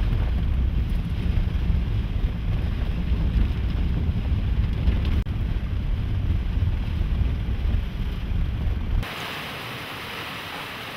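Strong storm wind buffeting the microphone, a loud low rumble; about nine seconds in it cuts abruptly to a quieter, even hiss of wind and rain.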